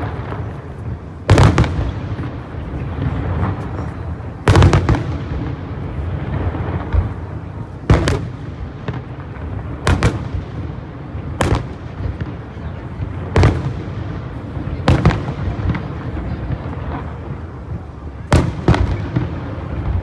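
Aerial fireworks bursting: about nine sharp booms at uneven intervals, each a second or two apart, over a continuous rumble of echoing bangs and crackle.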